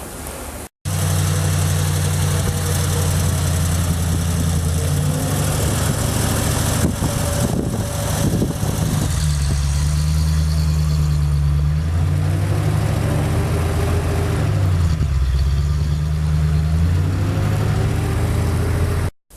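A motor vehicle engine running with a steady low hum, its pitch dropping and rising again a few times. It starts abruptly about a second in and cuts off abruptly near the end.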